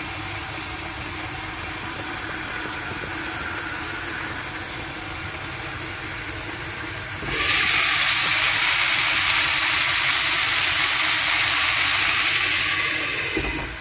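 Peppers, zucchini and cherry tomatoes frying in a pan on a gas hob: a steady, quieter sizzle under the glass lid. About seven seconds in, with the lid off, it turns suddenly into a loud, hissing sizzle, which dies down near the end.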